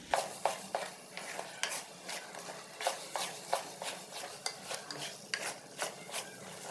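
A spatula stirring and scraping thick gajar halwa (cooked-down grated carrots) around a large metal pot, in irregular strokes about two a second, over a light sizzle from the hot pot.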